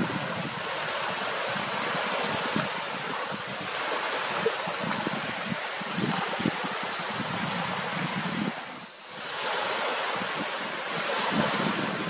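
Wind rushing and buffeting the microphone, with small waves lapping on a reservoir: a steady hiss with irregular low thumps that fades briefly about nine seconds in.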